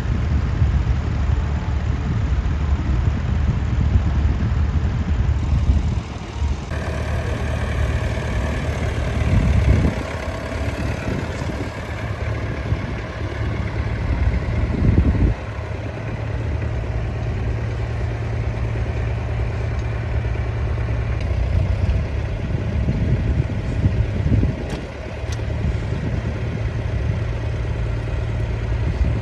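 Tractor engines running steadily, the sound changing abruptly twice where the footage is cut.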